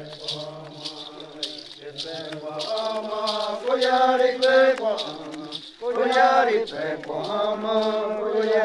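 Group of Wajãpi men chanting together in unison, the phrases rising and falling with a brief break about six seconds in. A sharp percussive beat about two to three times a second keeps time under the singing.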